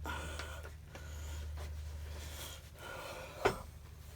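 Faint handling of scooter parts and a bolt over a low steady hum, with one sharp click about three and a half seconds in.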